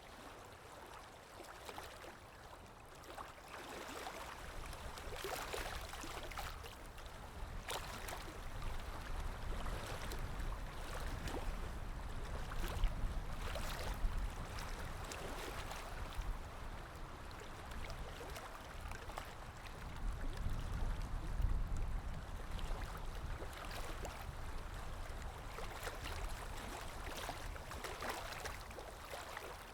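Calm waves lapping, a continuous wash of water with small splashes, swelling louder in low surges near the middle and again about two-thirds through.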